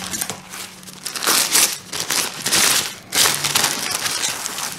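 Paper wrapping crinkling and rustling in several bursts as it is unfolded from around a potted orchid.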